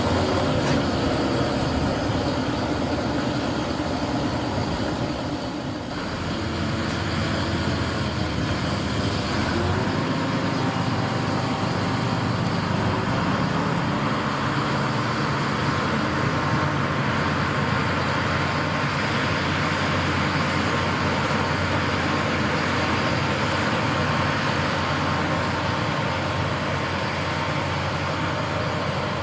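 Railway train running steadily: a constant locomotive engine drone under a broad hiss, dipping briefly about six seconds in.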